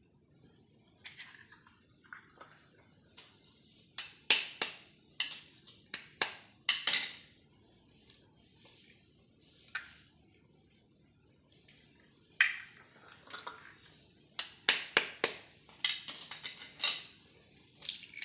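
Eggs being cracked against the rim of a bowl and opened into it: two bouts of sharp taps and clinks of shell on the dish, each a few knocks close together, with faint scraping in between.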